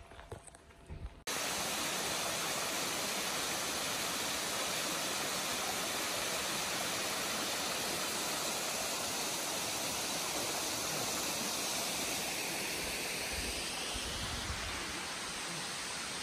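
Waterfall rushing: a steady, even roar of water falling over rock, which comes in abruptly about a second in and eases a little near the end.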